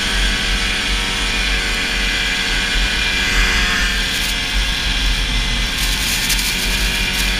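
Old Ski-Doo snowmobile engine running at a steady speed while riding through deep powder, with a steady hiss over it.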